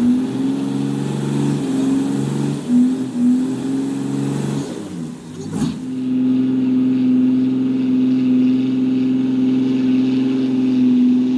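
An engine running, its pitch shifting up and down for the first half, then after a short knock about halfway it holds at a steady pitch.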